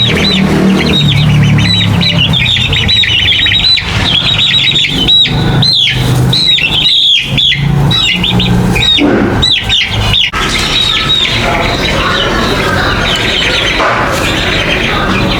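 A flock of chicks peeping: many short, high-pitched, overlapping calls that thin out after about ten seconds.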